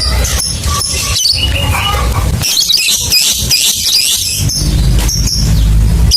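Lovebird chattering in sharp, high chirps that run into a long, rapid chattering trill, the 'ngekek' song, from about two and a half to four and a half seconds in. A steady low hum lies underneath.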